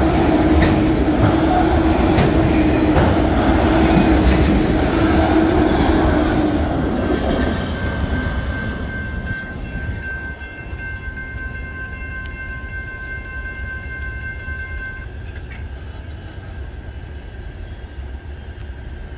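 Autorack freight cars rolling past with loud wheel-on-rail rumble and clatter, fading away about seven seconds in as the train's end clears the crossing. Steady high ringing tones from the grade-crossing bell carry on after it and stop about fifteen seconds in.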